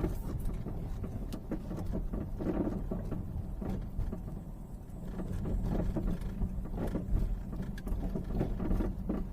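Peugeot 308 front suspension clunking irregularly over small road bumps while driving, heard inside the cabin over steady low road rumble. The knock is unchanged with rubber packed at the worn lower control arm, so the mechanic rules that arm out as its source.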